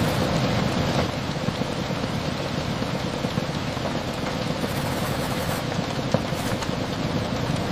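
Steady rain tapping against a window: an even hiss with scattered small ticks of drops.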